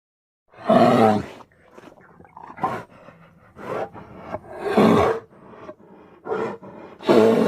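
Bear roaring and growling: three loud roars, about half a second in, near the middle and near the end, with lower rumbling growls and short grunts between them.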